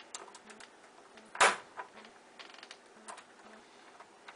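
A bump key is struck once, sharply, in a pin-tumbler deadbolt, about a second and a half in, with lighter clicks and a brief rattle of the key and pins in the lock around it as the lock is not yet opening.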